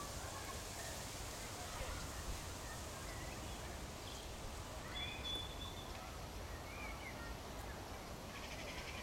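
Outdoor ambience: a steady low rumble, typical of wind on the microphone, with a few faint short bird calls scattered through and one brief whistled note about five seconds in.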